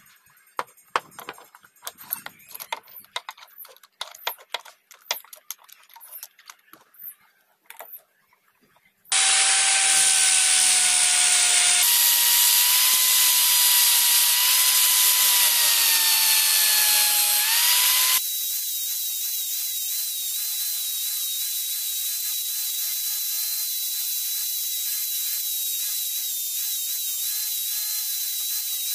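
Light, irregular knocks and clicks of a wooden handle blank being clamped and worked by hand. About nine seconds in, an electric drill fitted with a sanding disc starts running with a loud, steady whine, sanding the wooden handle. After about eighteen seconds it carries on as a quieter steady whine.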